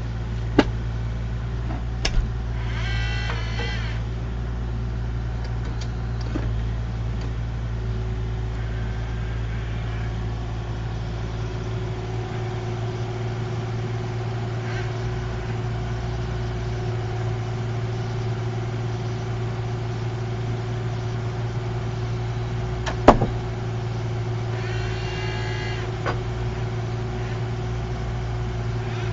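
Kubota KX040-4 mini excavator's diesel engine running steadily while the Engcon tilt rotator and grapple work, with a steady higher whine coming in about eight seconds in. There are sharp metallic clanks, the loudest about 23 seconds in, and two short squeals, one near the start and one near the end.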